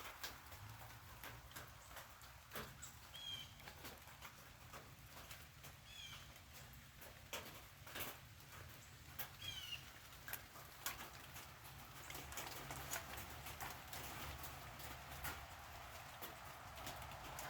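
Rain dripping on a tin roof: scattered, irregular ticks of single drops over a faint hiss.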